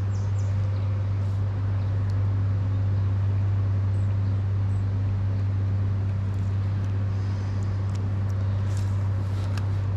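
A steady low machine hum with fainter higher tones above it, unchanging in level, with a few faint ticks over it.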